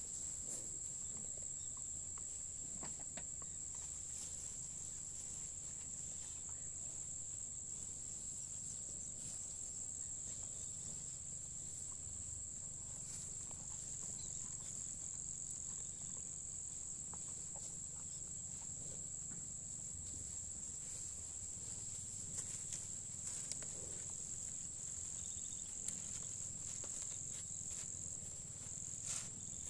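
A steady chorus of insects: one unbroken high-pitched buzzing note that holds level throughout, over a faint low rumble, with a few soft clicks near the end.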